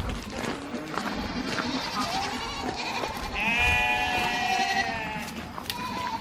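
Farm livestock bleating: one long bleat, lasting about two seconds, past the middle, with fainter calls before it.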